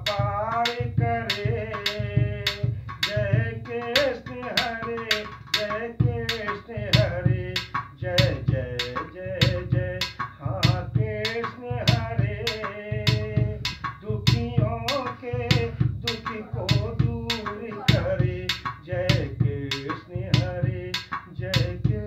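A man singing a Hindi devotional bhajan in a wavering, melismatic line, accompanying himself with a steady rhythm of hand strikes on a round hand-played percussion vessel.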